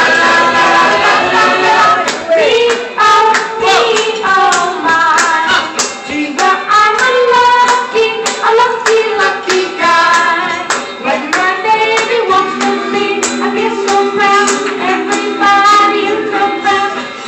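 A young male singer singing a 1950s-style song into a microphone over instrumental accompaniment with a steady beat.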